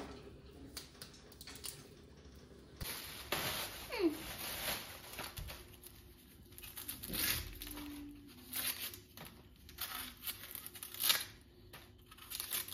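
Crinkling and rustling of packaging being handled, in irregular strokes, with a short faint falling squeak about four seconds in.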